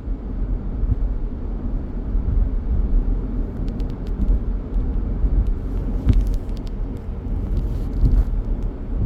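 Steady low road and engine rumble inside a moving car's cabin, with a few faint clicks in the second half.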